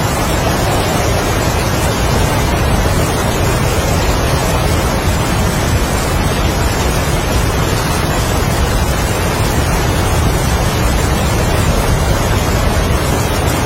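Heavy rain and strong wind in a steady, dense wash of noise.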